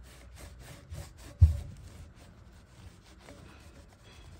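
A cloth rag rubbing quickly back and forth over a steel LS1 crankshaft journal, wiping away the wet-and-dry sanding residue and WD-40. There is a single low thump about a second and a half in.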